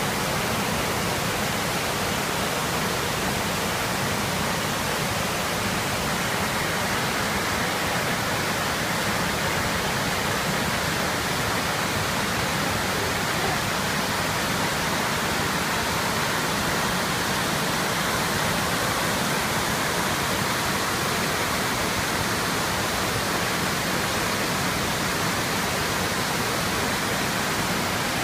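Rushing river water: a steady, even wash of noise that does not change.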